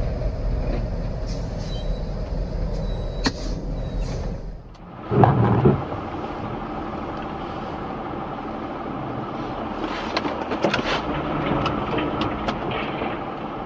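Vehicle road and engine rumble as heard from inside a cab, fading out about four and a half seconds in. Two loud thumps follow just after, then steady road noise with scattered clicks.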